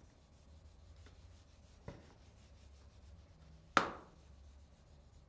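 Whiteboard eraser wiping across a whiteboard: a faint, rapid rubbing, with a small click about two seconds in and a sharper knock just before four seconds.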